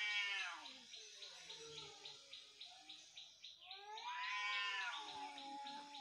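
Two cats yowling at each other in a fight standoff: a drawn-out howl that fades about a second in, lower quieter moaning, then a second, longer yowl that rises and falls in pitch about four seconds in.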